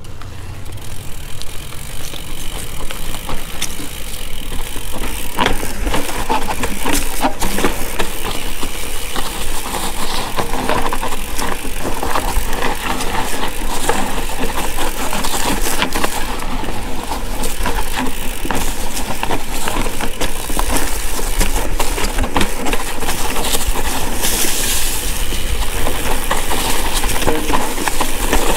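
Mountain bike ridden uphill on a dirt singletrack, heard from the bike: a steady crunch of tyres over dirt and stones with frequent clicks and rattles from the bike, over a constant low rumble on the microphone.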